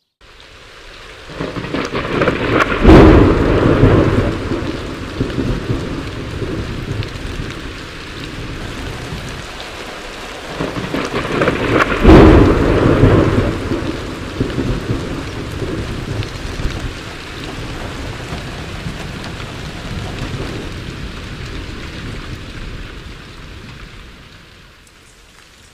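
Thunderstorm: steady heavy rain with two loud rolls of thunder, about three seconds in and again about twelve seconds in, each rumbling away over several seconds.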